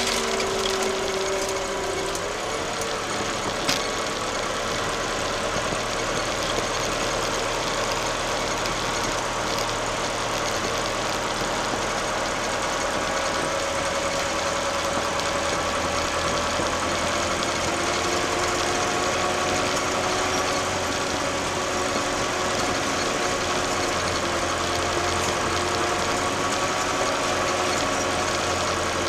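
Case 885XL tractor's diesel engine running steadily while driving, with a whining tone from the machine that slides in pitch, falling near the start. A single short click about four seconds in.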